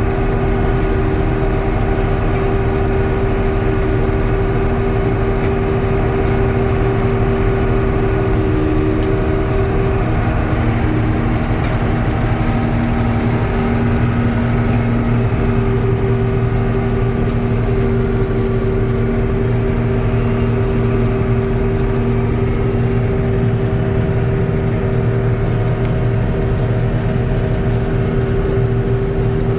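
John Deere 6620 combine running steadily while harvesting soybeans: a constant drone of the engine and threshing machinery, with several steady tones.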